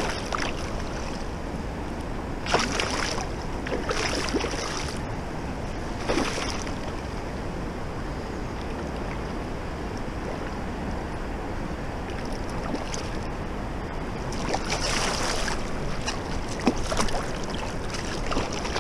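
Steady rush of river rapids with a hooked fish splashing at the surface beside the landing net in short bursts, about four times, the longest near the end.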